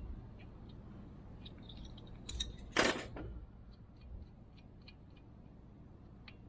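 Metal tool clinks: a wrench knocking against the steel bolts and pins of a mini excavator quick coupler as they are tightened, with a louder metallic clatter about two and a half seconds in and lighter ticks after it.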